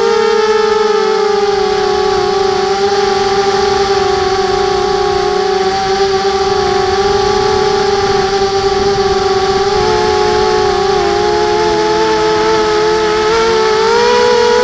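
Emax Nighthawk quadcopter's four brushless motors and propellers whining in steady slow flight: several close tones that dip slightly in pitch now and then and rise again near the end as the throttle changes.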